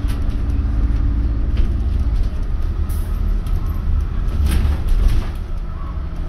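A double-decker bus driving along, heard from inside: a steady low rumble of engine and road noise, with a low hum that fades about two seconds in and a few brief rattles and knocks.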